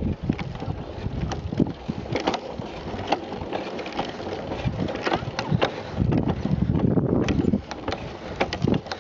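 Pedal go-kart rattling and knocking irregularly as it is ridden over bumpy grass, with a low rumble from the wheels and wind on the microphone.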